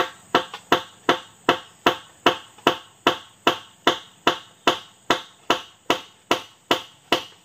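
A long run of sharp, evenly spaced knocks, about two and a half a second, each dying away quickly. Insects keep up a steady high trill behind them.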